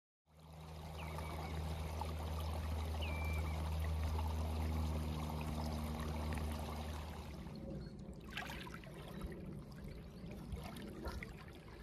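Small freshwater stream trickling and gurgling over stones and mud. About seven seconds in the sound drops to a quieter wash of calm water.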